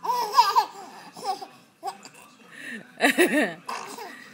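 High-pitched laughter in short bouts: one near the start, a few short bits in the middle, and a quick pulsing run about three seconds in.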